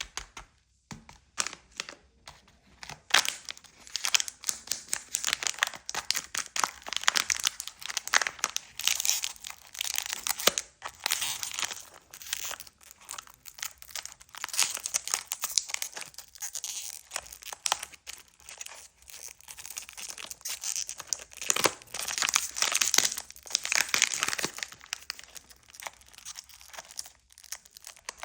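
Candy packaging being crinkled and torn open close up: a continuous run of irregular, crisp crackles that swell and ease off.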